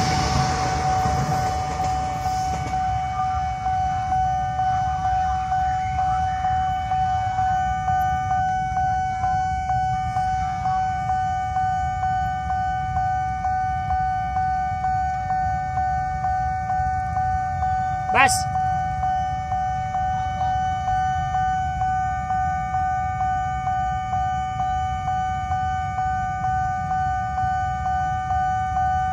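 Railway level-crossing warning alarm sounding: a steady electronic tone pulsing in a regular beat, over the low rumble of waiting traffic. A KRL electric train's passing noise fades in the first couple of seconds, and there is one sharp click about 18 seconds in.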